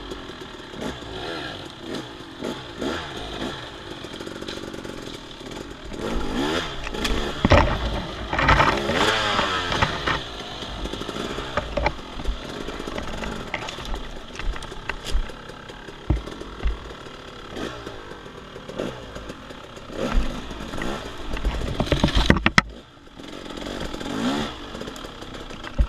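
Off-road dirt bike engine revving up and down under throttle while riding a woods trail, loudest in pulls about a third of the way in and again near the end, with scattered knocks and clatter from the bike over rough ground.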